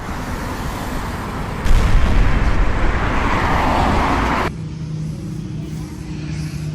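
Loud rushing noise with a heavy rumble that jumps up about a second and a half in, cut off abruptly a little after halfway. Music with steady low notes follows.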